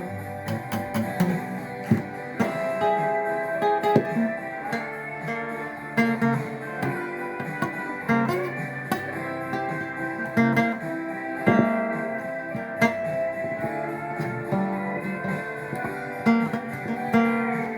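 Instrumental break of a folk song: guitar picking a melody over chords, with no singing.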